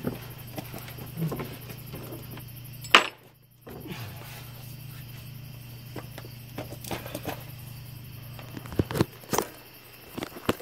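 Steady low hum with scattered light clicks and knocks of hand work under a car. A sharp knock comes about three seconds in, followed by a brief drop-out, and a few louder knocks come near the end.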